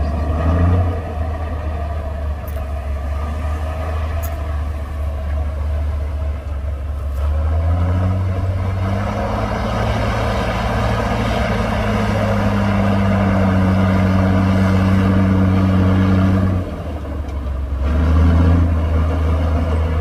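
Komatsu D58P bulldozer's diesel engine working as the dozer pushes soil. The engine note grows louder and heavier about a third of the way in as it takes the load, drops off sharply near the end, then picks up again briefly.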